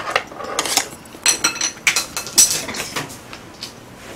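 Tableware clattering: a series of sharp knocks and clinks of utensils against bowls and a metal pot. A few of them ring briefly, about a second and a half in, and the loudest knock comes about two and a half seconds in.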